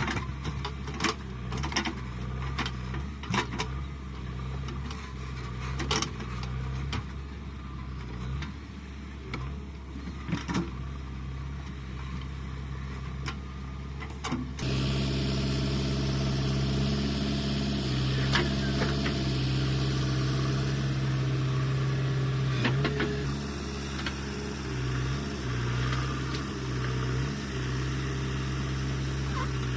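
JCB 3DX backhoe loader's diesel engine running steadily under work, with scattered sharp knocks in the first half. About halfway through it turns suddenly louder.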